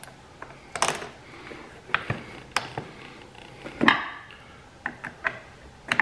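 Small metal hardware clicking and clinking as a battery terminal bolt and nut are worked by hand onto an ATV battery post with the cable lug: irregular sharp clicks, the loudest about four seconds in.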